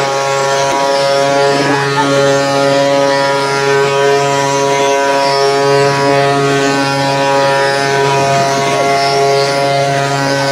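Wooden ox cart (carro de boi) singing: the turning wooden axle rubbing in its wooden bearings gives a loud, steady, droning whine with many overtones, holding one pitch throughout.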